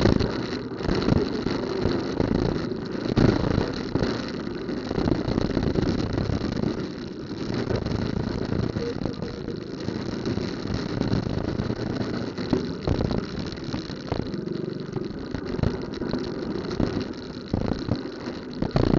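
Car and motorcycle engines idling and running close by in slow, jammed traffic, with frequent bumps and knocks on the microphone.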